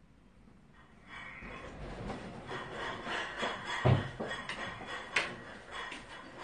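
A wooden sliding door rasping as it is slid open, with a knock about four seconds in and a sharp click about a second later as a server carries in a tray of dishes.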